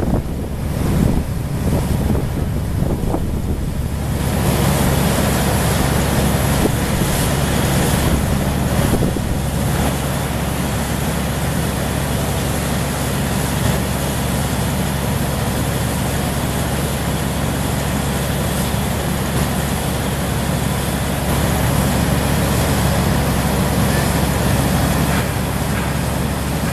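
Steady outdoor din of a city construction site: a low machine hum under a broad rushing noise, partly wind on the microphone, that swells about four seconds in and then holds steady.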